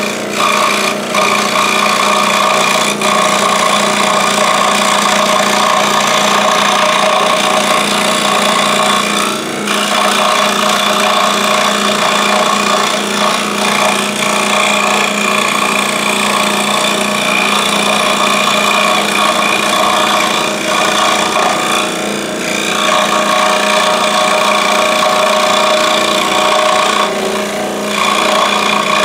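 Scroll saw running steadily with a constant hum while its blade cuts through wood. The sound dips briefly about three times, around ten seconds in, past twenty seconds and near the end.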